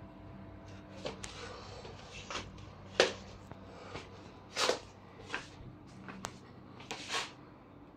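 Scattered soft knocks and brushing sounds in a small room, about nine at uneven intervals with the loudest about three seconds in: footsteps on a laminate floor and the handling of a hand-held phone as it is carried through a bedroom.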